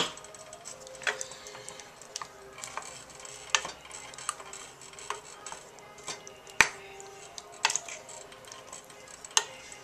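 Wooden spoon stirring a thick tomato sauce in a small stainless-steel saucepan, with scattered knocks of the spoon against the pan, the loudest about two-thirds of the way through.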